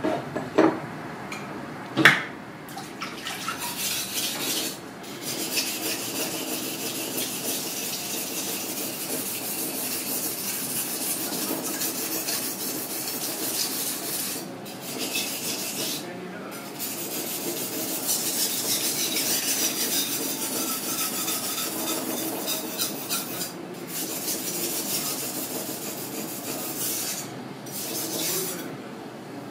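A steel knife blade is stroked back and forth on a water-soaked sharpening stone, making a steady gritty rasp of repeated strokes broken by a few brief pauses. A sharp knock comes about two seconds in.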